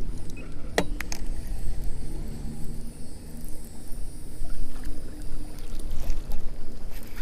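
Wind buffeting the microphone and water slapping against a kayak's hull, a steady low rumble, with a few sharp clicks about a second in.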